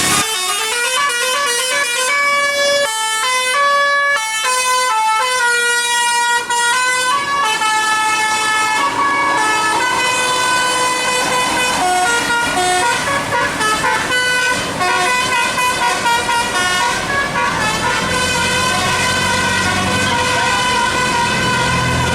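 Indonesian bus "telolet" musical air horn playing a tune: a quick run of stepped notes, then longer held, chord-like tones. A low rumble comes in near the end.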